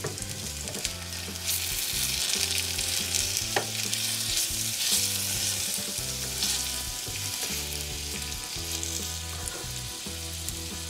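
Sliced onions and mushrooms frying in a miniature pan, with a steady sizzle that is strongest in the first half.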